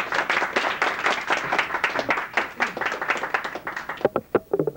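A small audience applauding, a dense patter of hand claps that thins out and stops about four seconds in.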